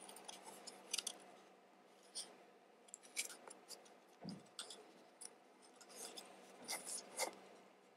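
Faint scattered clicks and light scrapes of small parts being handled as the trigger chassis of a Tokyo Marui Glock 17 airsoft pistol is fitted and slid into its frame, with a soft knock about four seconds in.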